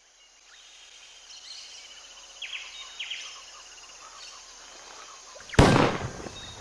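Quiet savanna ambience with two short bird chirps, then a loud rifle shot near the end that rings on briefly.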